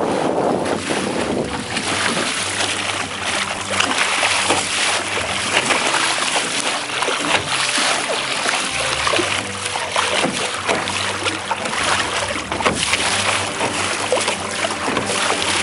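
Water rushing and splashing against a sailing dinghy's hull as it sails through choppy water, with wind on the microphone. Faint background music with held chords runs underneath.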